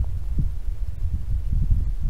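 Wind buffeting the camera microphone: a loud, uneven low rumble in quick gusts, with no birdsong heard over it.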